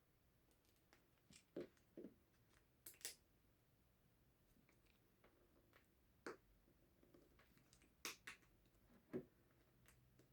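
Faint, scattered clicks and taps of a small screwdriver working a tight screw out of a metal lens housing, about eight short ticks spread unevenly through the quiet.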